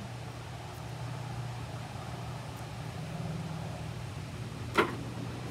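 Electric dog grooming clippers running with a steady low hum while trimming a Pomeranian's coat. About five seconds in there is one brief, sharp sound, the loudest moment.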